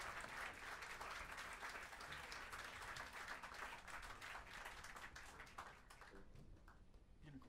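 Audience applause, thinning and dying away about six seconds in.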